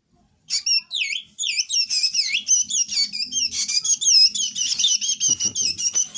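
A hungry pet drongo calling in a fast, unbroken string of high, twisting whistled chirps, starting about half a second in.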